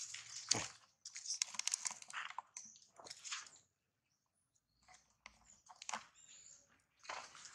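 Dry fallen leaves crunching and crackling underfoot in irregular bursts, with a short pause a little past halfway.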